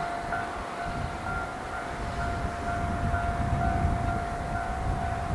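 Level-crossing alarm ringing with a steady, pulsing electronic tone, about two rings a second, while a snow-covered diesel railcar approaches with a low rumble that grows louder toward the end.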